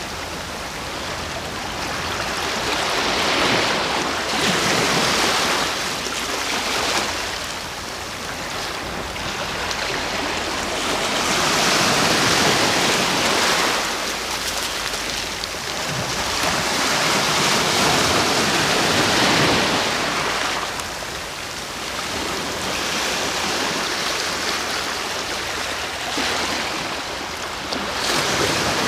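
Sea waves breaking on the shore: a steady hiss of surf that swells and ebbs every several seconds, about four times.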